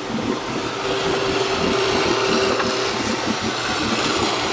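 A WARN VR EVO electric winch on a Jeep Wrangler's front bumper running under load, a steady whine over the low rumble of the engine, as it drags the mud-bogged Jeep forward.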